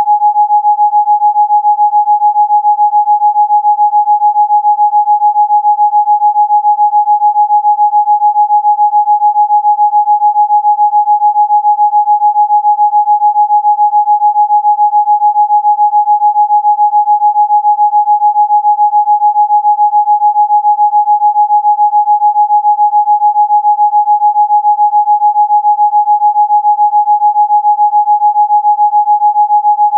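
A steady, fairly high electronic pure tone, held at one pitch throughout and pulsing rapidly in loudness. It is a Rife-frequency tone played for chicken pox.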